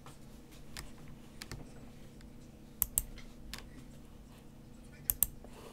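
Sparse computer keyboard typing, a few scattered key presses, with two louder double clicks about three and five seconds in, over a faint steady hum.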